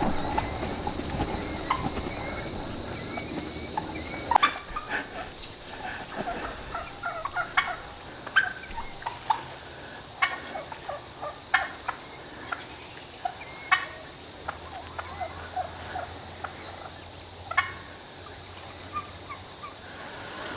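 Wild turkey hens calling back and forth: many short calls scattered irregularly, some loud and sharp.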